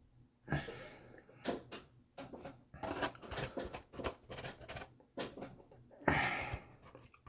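Black plastic fork scraping and clicking in a foam takeout container while food is chewed, with two louder hissing rushes, about half a second in and just after six seconds.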